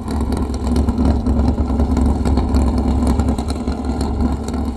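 Race vehicle's engine idling steadily, a continuous low rumble with a steady hum.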